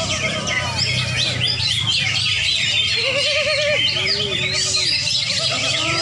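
Many caged cucak ijo (green leafbirds) singing at once at a songbird contest: a dense, continuous chorus of overlapping chirps and whistles, with people's voices calling underneath.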